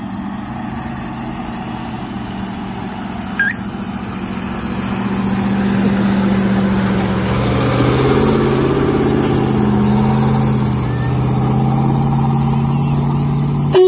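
GAZ-66 army truck driving slowly past on a dirt track, its engine running steadily and getting louder as the truck comes close, loudest about two-thirds of the way through. A short sharp click just before the end.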